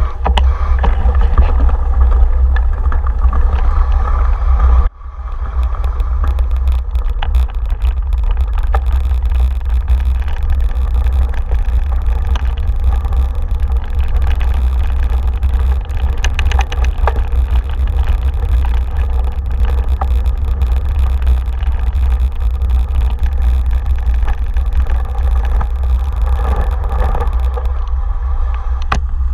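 Heavy wind rumble on the microphone during a fast bicycle ride over a leaf-strewn dirt path, with tyre noise and scattered clicks and rattles over the bumps. The rumble drops out briefly about five seconds in.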